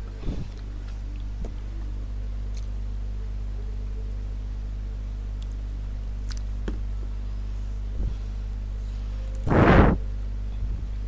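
Steady low electrical hum with a few faint clicks, then one loud, short burst of noise about nine and a half seconds in.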